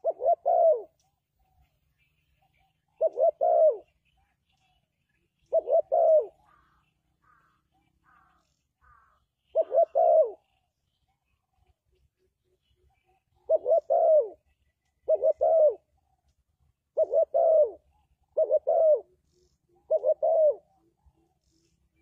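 Spotted dove cooing: nine short phrases of two or three notes each, a few seconds apart and coming more often in the second half.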